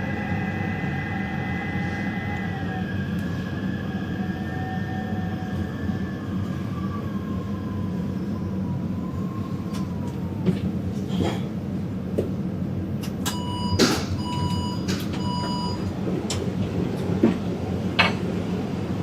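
Taipei Metro train heard from inside the car: a steady rumble with a motor whine that falls in pitch as the train slows. About two thirds of the way through comes a short chime of repeated tones, with a few sharp clunks around it.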